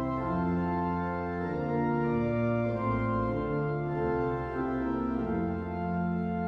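An organ playing slow music in sustained full chords, with the notes and the bass changing every second or so.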